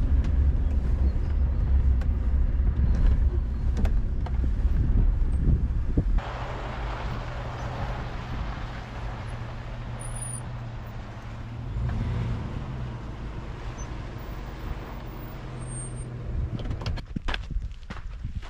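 Vehicle driving slowly along a dirt desert track, a steady low rumble heard from inside the cab. About six seconds in it cuts to a quieter outdoor hiss with a faint steady hum, and near the end come a few footsteps on dirt.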